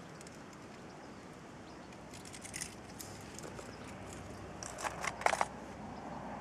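Close handling noises from someone working with gear: a few brief rustles and clicks, then a louder cluster of sharp clicks about five seconds in.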